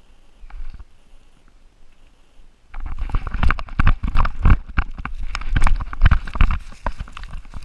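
Dog-mounted GoPro on a running chocolate Labrador: nearly quiet at first, then from about three seconds in a rapid, uneven run of heavy thumps and rustles as the dog breaks into a run and the camera jolts with each stride.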